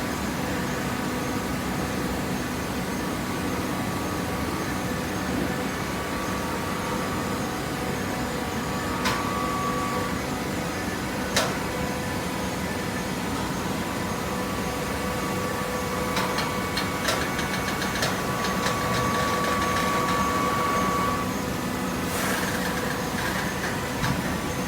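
Hydraulic automatic waste paper baler running: the steady hum of its hydraulic power unit, with a higher whine that comes in briefly and then for several seconds in the second half, and a few sharp clicks or knocks.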